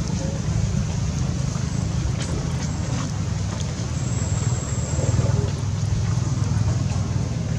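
Steady low background rumble, with a few faint short sounds above it about halfway through.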